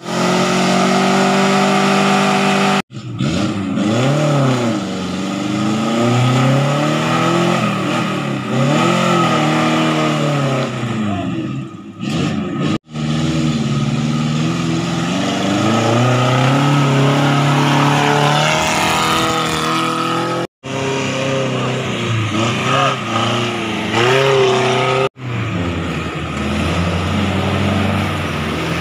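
A small four-wheel-drive off-roader's engine revving up and down again and again as it drives through a muddy stream. The sound breaks off abruptly a few times.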